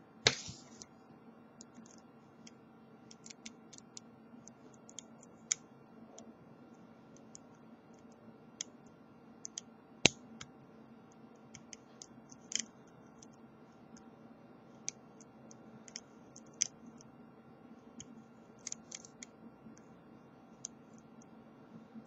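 Lock pick and tension wrench in the keyway of a Brinks deadbolt's pin-tumbler cylinder, picking it open: small irregular clicks and scrapes of the pins, with a few sharper clicks, the loudest just after the start and about ten seconds in.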